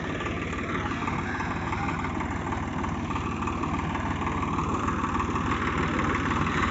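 Swaraj 744 FE tractor's three-cylinder diesel engine running steadily under load while its rotary tiller churns through flooded paddy mud. It grows a little louder toward the end.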